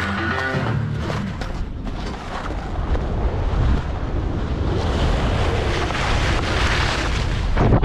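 Wind rushing over an action camera's microphone as a skier descends at speed, with skis hissing and scraping over groomed snow. The rush grows brighter and harsher about five seconds in.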